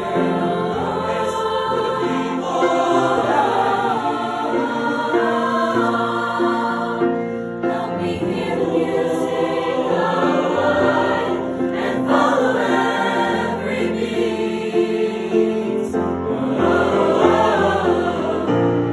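High school choir singing a new choral piece, several voices together in sustained, shifting chords.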